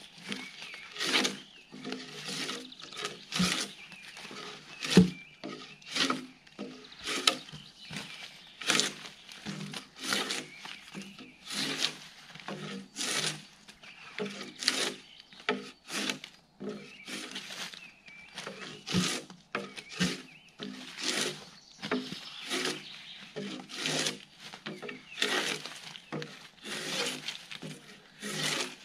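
Gränsfors Bruks drawknife pulled along a log, scraping the bark off in repeated rasping strokes, roughly one every second or so.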